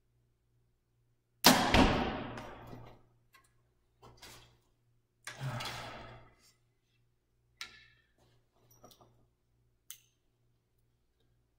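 A 2014 PSE Dominator compound bow shot: a loud sudden crack about a second and a half in that rings down over about a second and a half. A softer knock follows about four seconds later, then a few light clicks as the next arrow is nocked.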